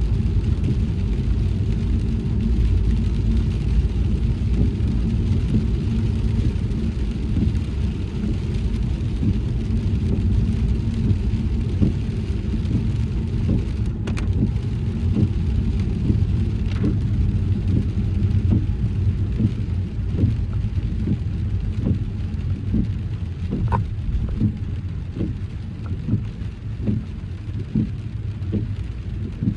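Car driving in heavy rain: a steady low rumble of tyres and engine on a wet road, with raindrops ticking against the car, more often in the second half.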